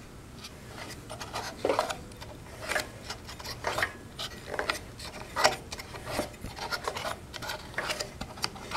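Irregular scrapes and clicks, about one or two a second, as a 7 HP Briggs & Stratton OHV lawn mower engine is turned over slowly by hand with its valve cover off.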